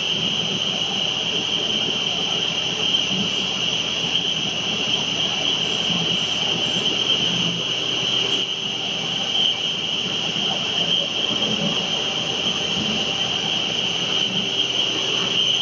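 Double twist copper wire bunching machine running at speed: a steady, high-pitched whirring hiss.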